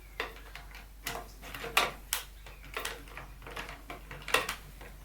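Irregular sharp metal clicks and light knocks, about seven of them, as the square spindle of a door handle is worked back into the lock unit and handle.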